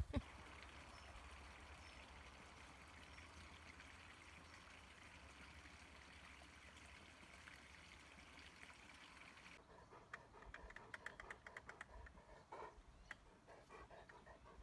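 Near silence: a faint, steady outdoor hiss. About ten seconds in it gives way to a run of faint, quick ticks and soft bursts.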